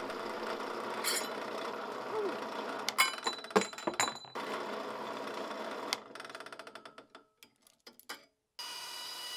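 Shop work on metal parts: sharp metallic clinks and knocks of tools and parts over a steady motor hum. After a brief near-silence, a different steady hum starts near the end.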